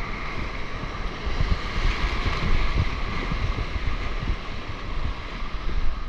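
Surf and water rushing around a camera at the sea's surface, with wind buffeting the microphone in irregular low gusts.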